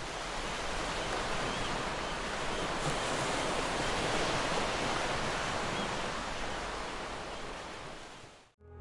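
A steady, even rushing noise like surf, swelling up at first and cutting off abruptly near the end.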